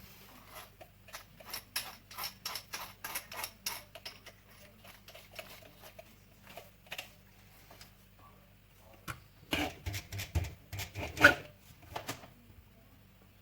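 Irregular small clicks and taps of parts and tools being handled at a workbench. A quick run of light taps comes in the first few seconds, then a louder cluster of knocks and rattles about ten seconds in.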